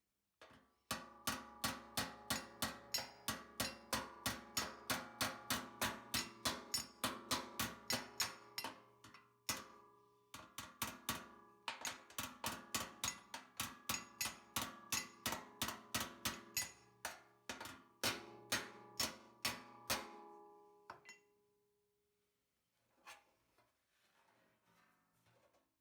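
Hammer blows on sheet metal over a steel anvil, about three a second with a ringing tone after each strike, straightening a bent body panel. The hammering pauses briefly about ten seconds in, stops near the end, and is followed by a few faint clinks.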